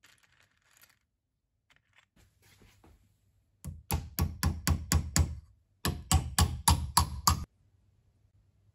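Faint rattle of steel nails being picked from a plastic box, then a nail hammered into the end of a pine block: two quick runs of about seven sharp blows each, about four a second, with a short pause between.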